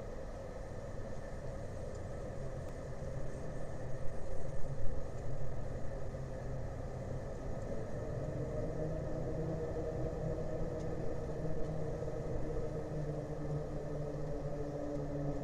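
Steady low engine rumble with a droning hum that grows stronger about eight seconds in, and a few louder knocks around four to five seconds in.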